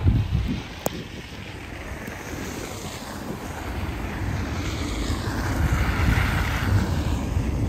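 Car tyres on a slushy, snow-covered road as traffic passes, the tyre noise swelling as a car drives by in the second half. Low wind rumble on the microphone throughout, and a single small click about a second in.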